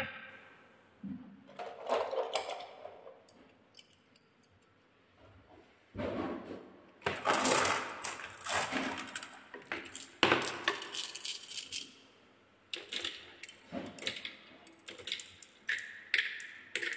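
Glass marbles rolling and clattering along wooden marble-run tracks and spirals, with many irregular clicks and knocks of marbles striking wood and each other, broken by two brief near-silent pauses.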